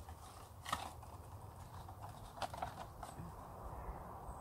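Eggshells being crunched up by hand: a few short, sharp crackles, the first under a second in and a small cluster about two and a half to three seconds in.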